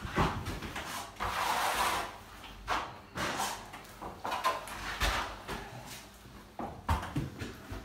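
Long steel-bladed Refina skimming spatula drawn across wet gypsum multi-finish plaster on a wall, making a series of irregular scraping strokes as the plaster is flattened while still wet.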